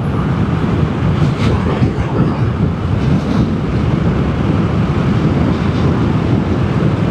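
Steady rushing wind and road noise of a Vespa GTS 300 scooter ridden at cruising speed, with its single-cylinder engine running underneath.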